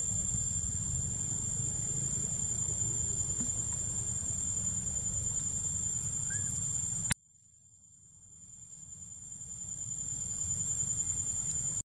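Steady high-pitched drone of insects, with a low rumble underneath. About seven seconds in, the sound cuts off abruptly and then fades back in.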